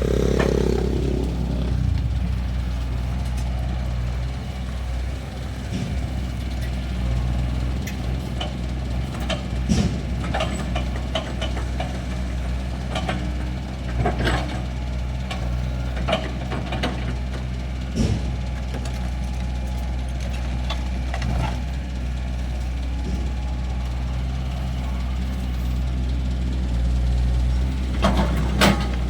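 Kobelco excavator's diesel engine running steadily at work, with scattered sharp knocks now and then and a quick cluster of them near the end.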